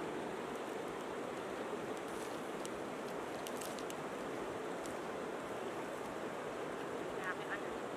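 Steady rushing of a river flowing over stones, with a few faint clicks in the middle.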